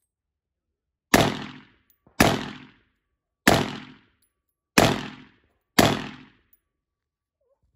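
AR pistol firing five single shots about a second apart, each loud report dying away over about half a second.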